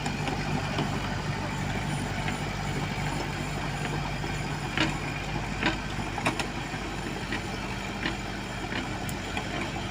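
Heavy diesel engines of road-paving machinery running steadily at a low, even hum, with a few sharp clacks about five to six and a half seconds in.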